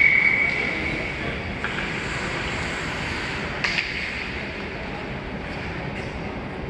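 An ice hockey referee's whistle blows one steady blast about a second long, then a couple of sharp stick-on-puck clacks sound against the steady hum of the rink.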